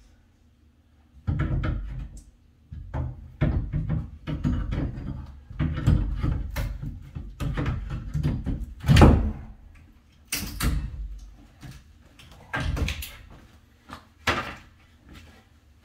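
A pry bar levering painted wooden closet trim off the wall: irregular knocks and cracks of metal and wood as the trim is worked loose. The loudest thump comes about nine seconds in, followed by sharp cracks.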